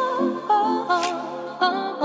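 Background music: a wavering melody over a steady beat, with a sharp hit about once a second.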